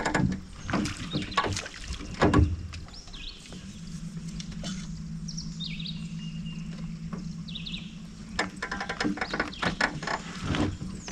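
Knocks and rattles from fishing gear being handled in a small boat, with a steady low hum for about five seconds in the middle and a few faint bird chirps.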